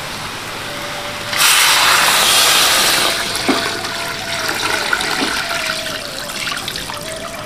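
Thick coconut milk poured from a jug into a hot wok of frying chili paste and leaves: a loud rushing splash starts about a second and a half in, eases after about a second and a half, and goes on as a steady pouring trickle.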